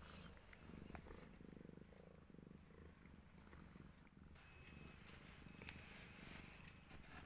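Tortoiseshell cat purring faintly and steadily while in labour.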